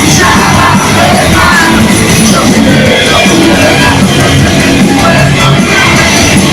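Live rock band playing loudly with a singer on vocals, heard as a concert recording.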